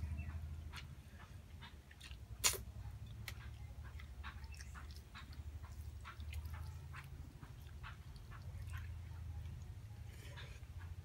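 Fingers mixing rice with chagempomba in a bowl: many small, soft wet clicks and squelches, with one sharper click about two and a half seconds in, then a mouthful taken by hand near the end, over a steady low hum.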